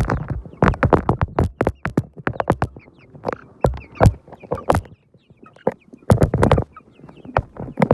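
A rapid, irregular run of sharp clicks and taps, with faint short high chirps from chickens now and then; a brief lull about five seconds in.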